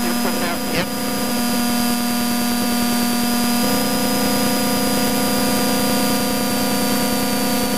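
BMW Compact rally car's engine pulling along a gravel stage, heard through the car's intercom recording with a hiss and a thin steady high whine over it. The engine note changes about three and a half seconds in.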